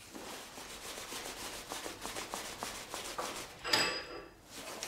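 Gloved hands rubbing and handling metal parts of a lathe setup: a soft scraping rustle with small ticks, then a louder scrape carrying a brief high ringing tone nearly four seconds in.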